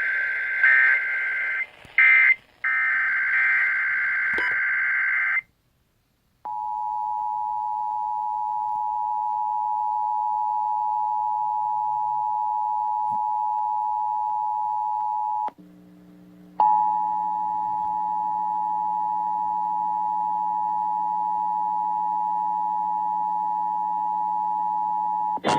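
Emergency Alert System broadcast signalling: shrill warbling SAME digital data bursts for about five seconds, then after a second's pause the steady two-tone EAS attention signal. The attention signal breaks off for about a second around fifteen seconds in, then starts again over a low hum.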